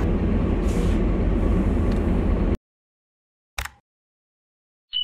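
Street traffic noise with a car driving past, a steady low rumble that cuts off suddenly about two and a half seconds in. About a second later comes a single short click.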